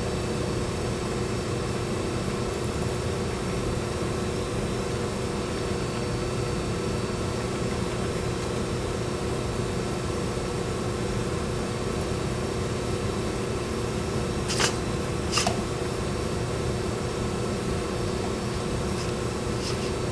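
Steady fan-like mechanical hum with a faint constant tone. Two sharp clicks, under a second apart, come about two-thirds of the way in.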